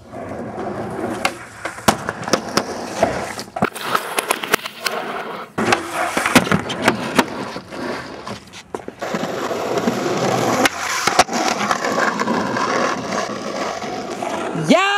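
Skateboard wheels rolling on pavement, with repeated sharp clacks of the board snapping and landing.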